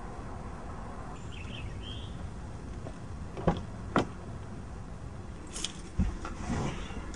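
A car door being opened and shut: two sharp latch clicks half a second apart about halfway through, then a dull thump of the door closing about six seconds in, followed by brief rustling, over a steady low outdoor rumble.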